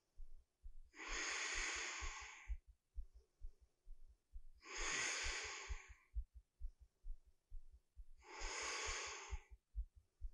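A woman's slow, audible yoga breathing close to the microphone while she holds a deep squat pose: three long breaths, each about a second and a half, a few seconds apart.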